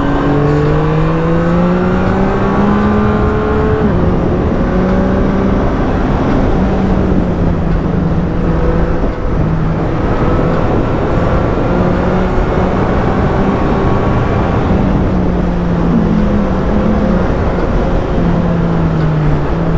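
2024 Yamaha MT-09's three-cylinder engine under way on the road. It rises in pitch for about four seconds as the bike accelerates, drops back at a gear change, then holds a fairly steady pitch, easing down near the end.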